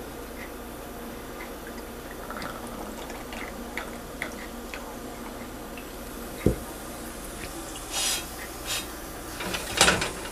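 Ghee sizzling and crackling steadily under a flatbread cooking on a hot iron tawa, with scattered small pops. There is a single knock about six and a half seconds in and a few short, louder noises near the end.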